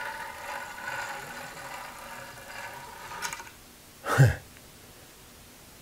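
Reader head of a DRO linear scale being slid by hand along its rail, a faint steady whirring that stops after about three and a half seconds, followed by one short knock about four seconds in.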